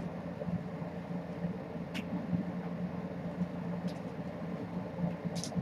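Steady low electrical hum, with a few faint, brief scratchy ticks from kittens scrambling and pouncing on a hardwood floor after a wand toy: one about two seconds in, one about four seconds in, and a short cluster near the end.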